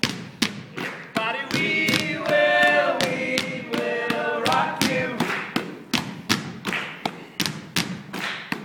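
Several basketballs bounced on a stage floor in a steady rhythm, a sharp thud on each beat as a percussion piece. Voices sing or chant held notes over the bouncing for a few seconds in the middle.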